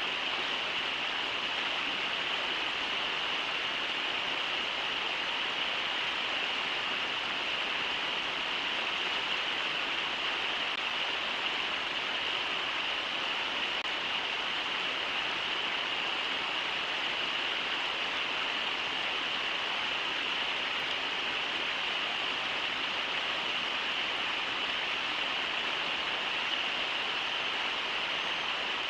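Steady rush of the Brooks River running over shallow riffles, an even, unbroken water noise with a bright hiss in the upper range.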